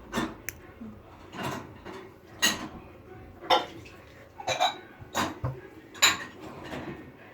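A series of light clinks and knocks of small hard objects, roughly one a second.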